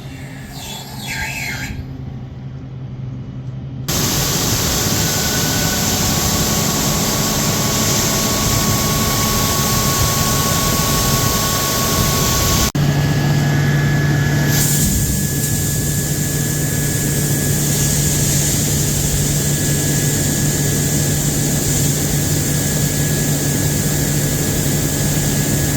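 Heavy machinery running loud and steady: a broad hiss with a high steady whine over it, changing abruptly about 4 s in and again about 13 s in.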